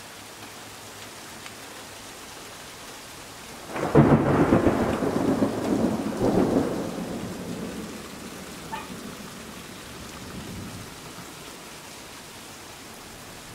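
Steady heavy rain falling, broken about four seconds in by a sudden loud clap of thunder that rumbles on for several seconds before fading back under the rain.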